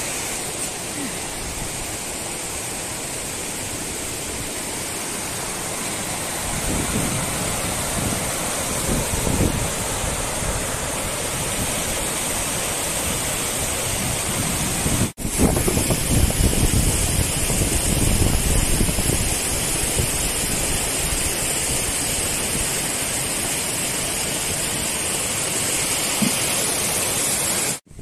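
Steady rushing of water over the rocks of a mountain stream. About halfway through it cuts off and comes straight back a little louder, with low rumbles coming and going.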